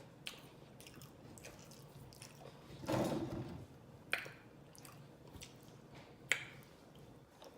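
Faint mouth sounds of someone chewing empanada, with a few sharp wet lip-smacking clicks and a short, louder stretch of chewing about three seconds in.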